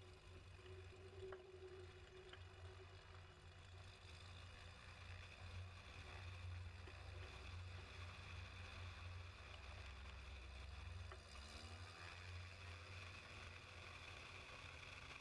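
Faint, steady low drone of a Cessna 185's flat-six engine and propeller as the taildragger taxis onto the runway.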